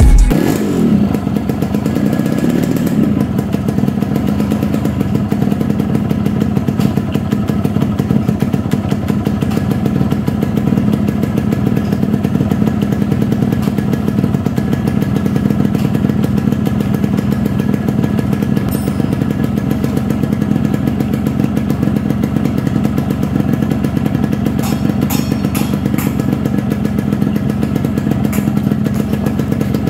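Yamaha RX Special two-stroke single-cylinder motorcycle engine, freshly rebuilt with a new piston, connecting rod and crankshaft bearings, running at a steady idle after a brief blip of throttle at the start.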